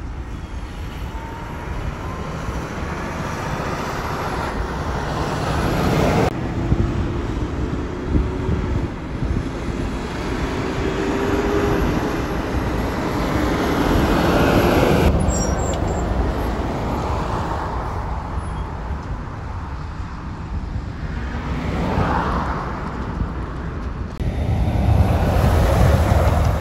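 Heavy diesel trucks driving past on a road, in several short clips one after another: a Mack semi-tractor pulling a trailer, then a front-loader garbage truck, then a garbage truck close by. Their engines and tyres make a steady rumble with a faint engine whine, and the sound cuts abruptly between clips. The last truck, near the end, is the loudest.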